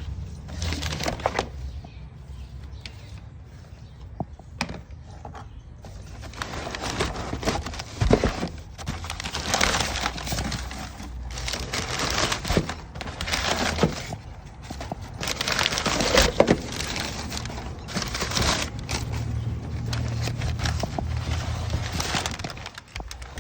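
Car engine running steadily, with several louder rushing surges and scattered clicks.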